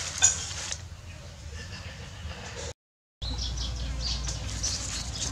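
Fresh leafy greens rustling as a hand turns them over in a plastic basket, with one sharp knock about a quarter second in. After a brief break, small birds chirp.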